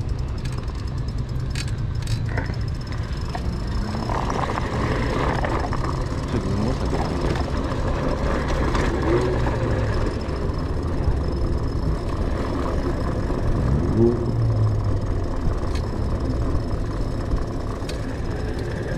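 Steady low rumble of wind and tyres on paving stones from a moving electric beach cruiser bicycle, with car engines running nearby and a few short rising revs.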